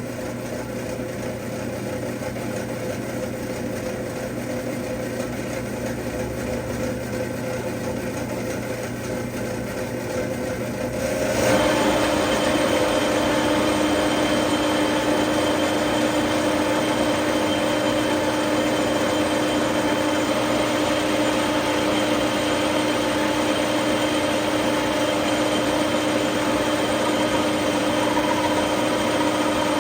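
Metal lathe running, taking a light cut on a fire hydrant shaft. About 11 seconds in the sound steps up louder and takes on new steady tones, then holds steady.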